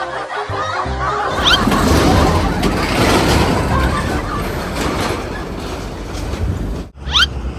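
A large road vehicle going by, a loud even rumble of engine and road noise that cuts off abruptly near the end. Music plays briefly at the start.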